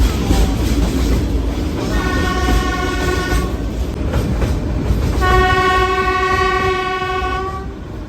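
Metre-gauge train running with a steady low rumble, sounding its horn twice: a short blast about two seconds in and a longer one midway through.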